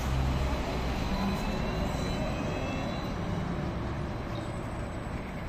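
Electric trolleybus pulling away from a stop and driving off, its traction drive giving a faint rising whine over the hiss of tyres and street traffic, which fades slowly as it moves away.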